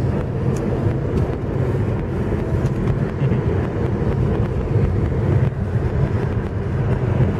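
Steady engine drone and tyre noise inside the cabin of a VAZ car with a 1.6-litre eight-valve engine, driving at an even speed.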